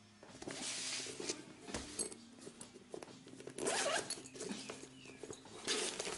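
Zipper of a soft nylon tool bag being pulled open in several strokes, with rustling and light clicks as the bag is handled.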